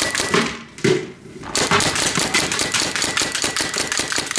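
Paintball gun firing fast strings of shots at a box fan, many shots a second, with a lull of about a second near the start before the rapid fire resumes.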